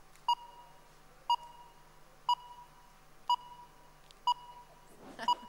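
Quiz countdown timer beeping once a second: six short, high beeps as the clock runs down through its last seconds.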